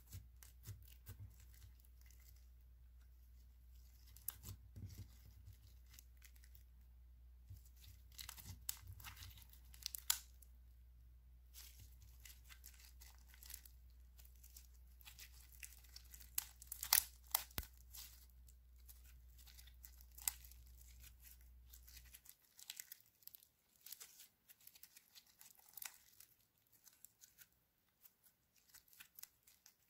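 Sticky slime with small foam beads mixed in being pressed, stretched and pulled apart by hand, giving faint crackles and sticky pops, loudest a little past the middle.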